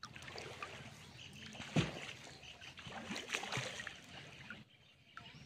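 Pond water splashing and sloshing as a fishing net is worked through it: a string of small splashes with one louder splash about two seconds in, settling down near the end.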